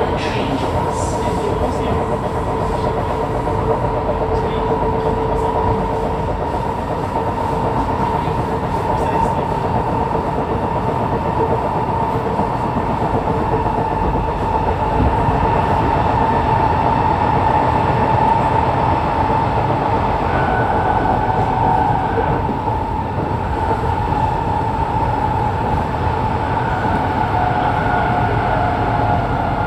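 Singapore MRT train running, its traction motors giving a steady electric whine of held tones over the rumble of wheels on rail. A higher tone comes in about two-thirds of the way through.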